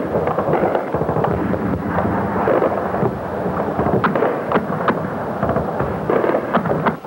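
Battlefield gunfire: irregular cracks of shots and blasts, many in quick succession, over a steady noisy din.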